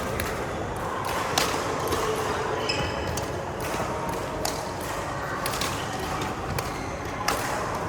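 Badminton rackets striking a shuttlecock in a rally, sharp hits coming every second or so over the steady background of an indoor sports hall.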